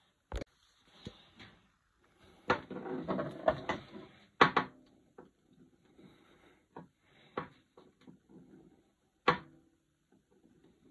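A steel pinball rolled by hand across a wooden pinball playfield and over freshly levelled plastic inserts: a rolling rumble of about two seconds with sharp knocks in it, and a few separate clicks as the ball is handled. The roll runs smoothly across the inserts, the sign that they now sit flush with the wood.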